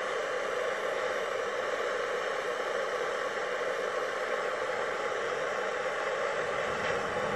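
Handheld gas torch on a gas canister burning with a steady hiss as its flame heats a cast iron part for hot brassing.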